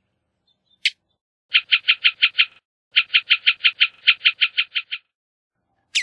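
Bullock's oriole calling: one sharp note that drops in pitch, then a rapid run of repeated notes, about eight a second, in two bursts with a short break between, and another sharp note near the end.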